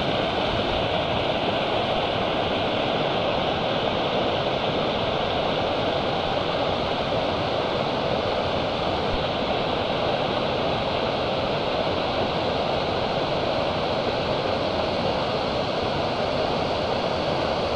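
Waterfall water rushing steadily, an even, unbroken wash of noise.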